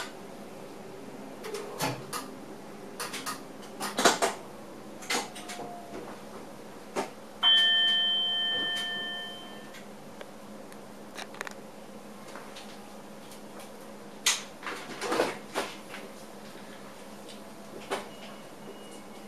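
Inside a moving passenger train's driver cab: a steady running hum, with clusters of sharp clicks and knocks from the wheels over the track. About seven seconds in, a cab signal bell rings once for about two seconds and fades.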